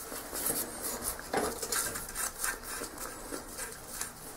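Light metal clicks and scraping as bolts and loose parts are handled by hand on a bare steel ATV frame during disassembly, with one sharper knock about a second and a half in.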